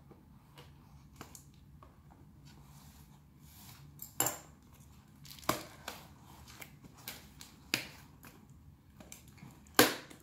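Packing tape being pulled and ripped off a cardboard shipping box: several short, sharp rips about two seconds apart, with smaller crackles between, the loudest near the end.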